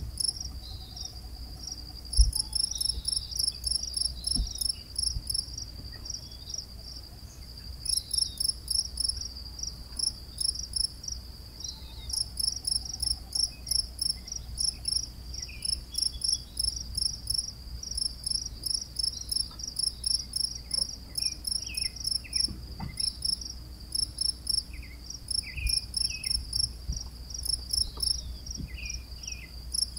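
Crickets chirping: a high, rapid chirp repeated evenly in runs of a few seconds with short gaps. A single thump sounds about two seconds in.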